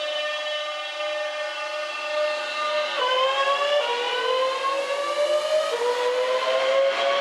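Southeastern Class 465 Networker electric multiple unit pulling away, its traction inverters and motors whining in several tones at once. The pitch jumps suddenly about three seconds in and again near six seconds, then keeps rising as the train gathers speed.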